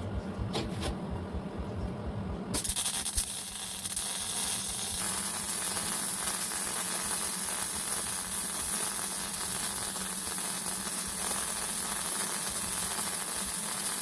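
Metalworking on steel sheet in a shop: about two and a half seconds in, a loud, steady, unbroken hissing noise starts and runs on, over a constant low hum.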